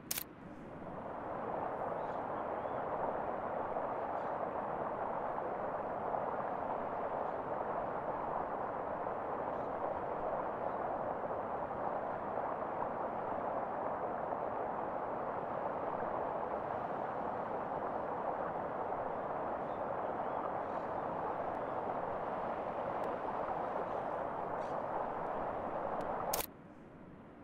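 A steady, even hiss that fades in over the first second or two, holds unchanged, and cuts off abruptly near the end, with a click at its start and stop.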